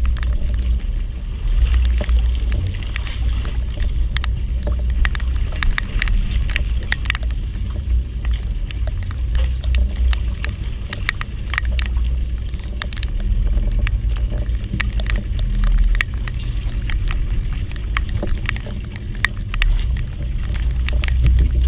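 Aboard a small fishing boat: a steady low rumble, typical of engine or wind noise, with many irregular sharp ticks scattered through it.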